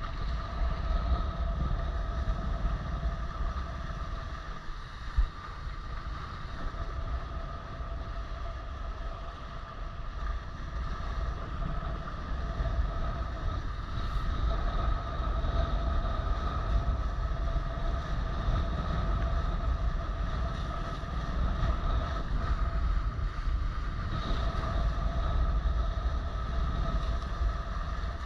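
Wind buffeting the microphone and water rushing and spraying past the hulls of a Maricat 4.3 catamaran sailing at speed. A steady high hum runs through it, and there is a single sharp knock about five seconds in.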